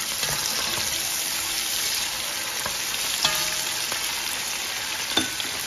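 Sliced red peppers and onions sizzling steadily as they fry in hot palm and sunflower oil in a pot, with a few sharp clicks as they are stirred with a wooden spatula.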